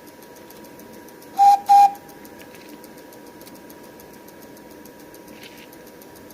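Two short toots of a 5-inch gauge live steam locomotive's whistle, one steady pitch each, about a second and a half in. Faint rapid ticking goes on in the background.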